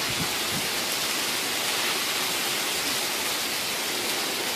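Heavy rain pouring down steadily, an even, unbroken hiss.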